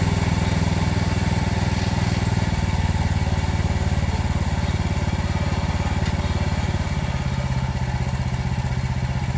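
Small gasoline engine of a Frontier portable bandsaw mill running steadily, its pitch shifting slightly about two and a half seconds in.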